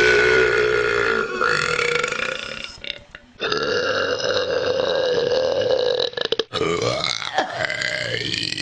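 Women's long, drawn-out burps following one after another, each lasting a few seconds with a held pitch. There is a short gap about three seconds in and another break about six and a half seconds in.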